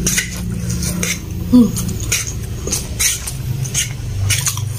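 Close-miked, wet chewing and mouth clicks from a mouthful of soft noodles, irregular at about two a second. A fork scrapes and clicks against the plate as it stirs and lifts noodles, with one brief louder squeak about a second and a half in.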